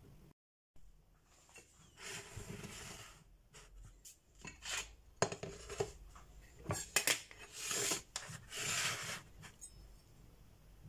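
A ceramic plate and kitchen utensils being handled on a countertop and slate board: two stretches of scraping rubs and several sharp knocks as things are slid and set down.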